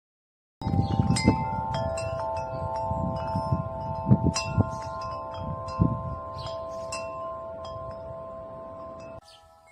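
Large tuned wind chime ringing, its tubes struck again and again and their tones sustaining and overlapping. It starts suddenly after a moment of silence and cuts off abruptly near the end.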